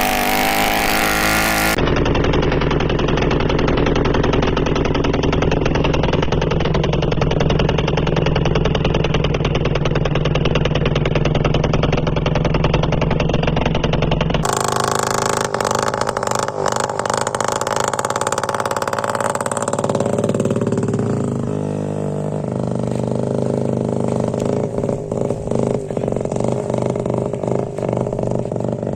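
Motorcycle engine running with a small clay surai bolted onto the end of its exhaust silencer. The engine note shifts abruptly about halfway, and later the revs fall away over a couple of seconds.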